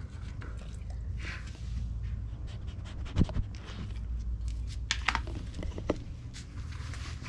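A dog panting and sniffing close to the microphone, with scattered clicks and knocks from the camera being handled.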